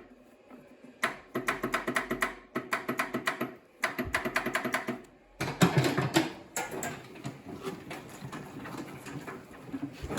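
Starter solenoid of a Murray riding lawn tractor chattering in rapid bursts of clicks, about eight a second, as the key is turned, without the engine cranking: the battery is too flat to turn the motor over. About five seconds in, a louder, rougher clatter follows.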